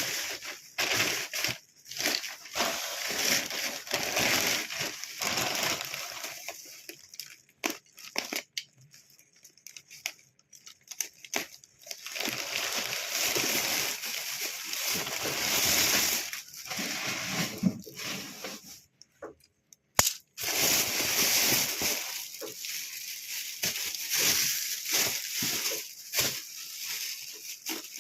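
Parcel packaging being handled and opened by hand: irregular rustling and crinkling in bursts, with a sharp click about twenty seconds in.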